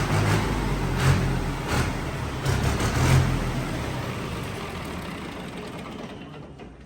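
Tractor diesel engine running after its fuel injection pump has been repaired, with a few brief surges in the first three seconds, then fading away steadily toward the end.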